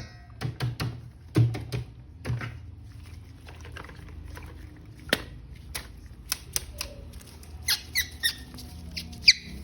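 Scattered sharp clicks and a few short squeaks near the end, from plastic being handled.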